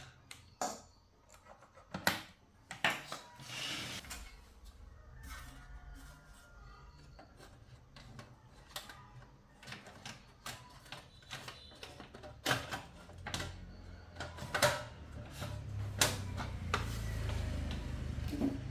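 Scattered clicks and light knocks from things being handled, several of them louder, with a low hum coming up in the last few seconds.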